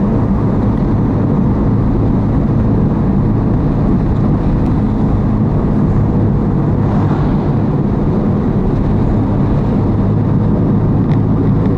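Steady drone of a motor vehicle on the move: engine hum and road noise, unchanging throughout.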